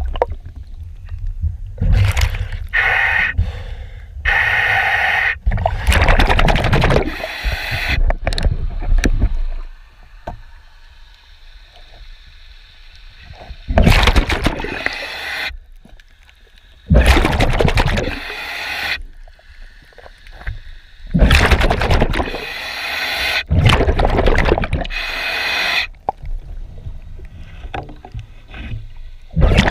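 Underwater sounds of a diver cleaning a boat hull: irregular bursts of scrubbing and scraping and gurgling bubbles every few seconds, with quieter gaps between them.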